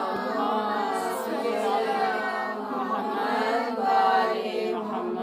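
A gathering's voices chanting together in unison, a drawn-out group recitation that swells near the end.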